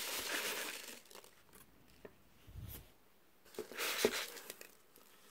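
Foam packing peanuts and a paper-wrapped package shifted by hand in a cardboard box, rustling during the first second and again just before four seconds in, with a soft low thump about halfway through.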